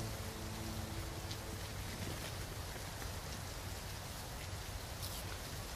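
Steady rain, an even hiss, with a soft music score dying away within the first second and a half.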